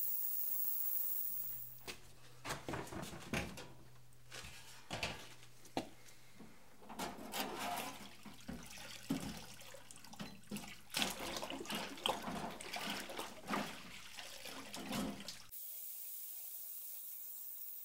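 Cleaning liquid sloshing and dripping, with scattered clinks and knocks of metal parts, as a wire basket is lifted out of an ultrasonic cleaner's tank, over a steady low hum. It cuts off suddenly near the end to a steady soft hiss.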